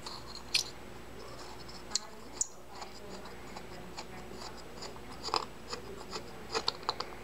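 Scattered small clicks and ticks of metal carburetor parts being handled as the brass bowl nut is turned by hand off the aluminium float bowl, with more clicks near the end.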